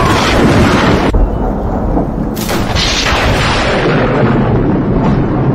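Close lightning strikes: loud thunder cracks and rumbling, with a fresh sharp crack about two and a half seconds in.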